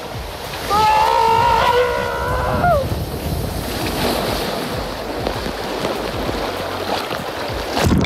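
Wind and water rushing over the microphone while riding down a steep speed water slide. About a second in, a person gives a held yell of about two seconds that drops in pitch at the end. A loud splash comes near the end as the rider hits the water.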